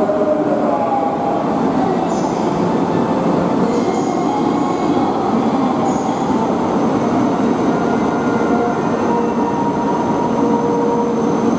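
Steady, loud rumble of a Shinkansen train at the platform, with faint shifting tones running through it.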